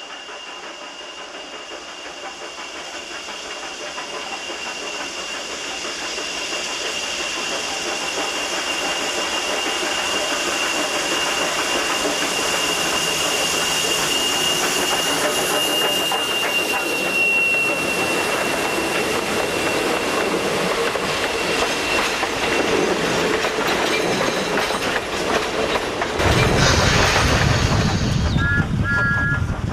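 Steam railway sound effects: a steam locomotive and its train running on the rails, with steam hissing, growing steadily louder as it approaches. Near the end it turns to a heavier, louder rush as it draws close.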